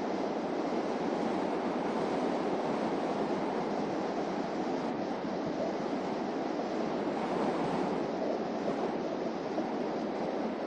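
Steady road and tyre noise of a car driving at an even speed, a constant rushing hiss with no changes.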